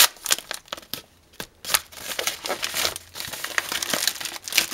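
Packaging crinkling and crackling as a mailing envelope and its wrapping are handled and opened, in a run of short bursts with a brief lull about a second in.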